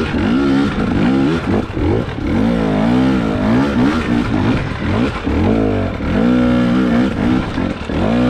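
2022 Husqvarna TX300 two-stroke dirt bike engine under repeated throttle surges, its pitch rising and falling every second or so as it picks its way up a steep trail.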